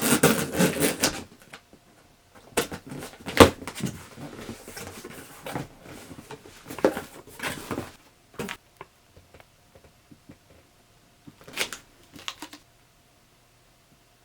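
Box and packaging being handled and opened: irregular rustling and scraping with sharp clicks and knocks, loudest in the first second, then in scattered bursts with pauses and a last rustle near the end.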